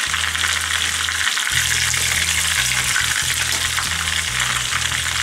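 Breaded chicken Kievs shallow-frying in hot vegetable oil in a pan, sizzling steadily.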